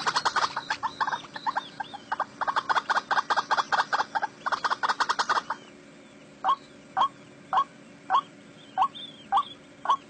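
White-breasted waterhen calling: a fast run of loud repeated calls that breaks off about five and a half seconds in, followed by single calls at about two a second.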